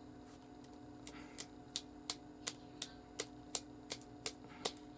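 Rubik's cube being turned by hand: a run of sharp plastic clicks, about two or three a second, starting about a second in.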